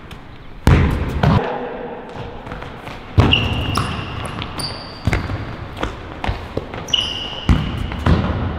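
Futsal ball being played and struck on a wooden sports-hall floor: about half a dozen thuds of foot and ball on the floor, with a few short high squeaks of indoor court shoes.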